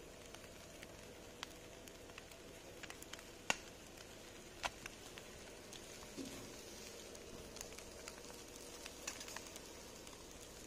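Charcoal fire under skewered meat on a barbecue grill, crackling faintly: a low steady hiss with scattered sharp pops, the loudest a little over three seconds in.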